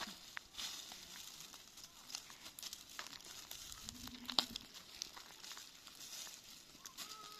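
Dry leaves crackling and rustling under hands rummaging through leaf litter on stony ground, with scattered sharp clicks. An animal bleat begins near the end.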